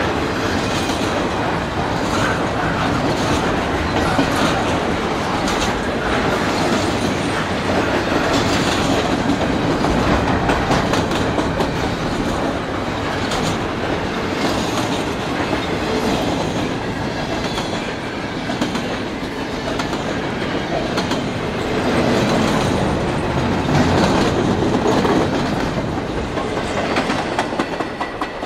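Double-stack container freight train rolling past at close range: a steady rumble of steel wheels on rail with a running clickety-clack as wheelsets cross rail joints. It grows quieter near the end as the train draws away.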